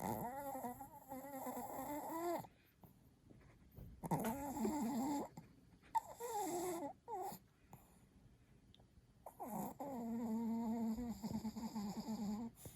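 Chihuahua snoring in deep sleep: four drawn-out snores with a humming pitch, a second or two apart, the last the longest.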